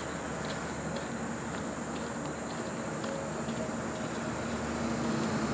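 Steady high-pitched insect drone outdoors, with a few faint short ticks. A low engine hum builds near the end.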